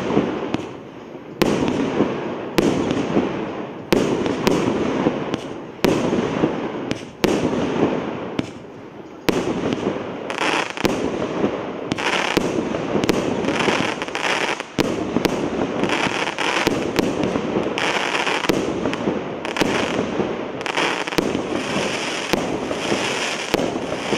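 A 110-shot fireworks combination cake firing: a rapid run of launch thumps and aerial bursts, one every half second to a second, over a continuous noisy wash of exploding effects. A brighter hiss joins in from about ten seconds in.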